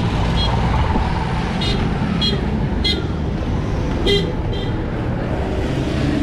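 Street traffic: a steady low engine rumble with about six short, high beeps of a vehicle horn spread through it.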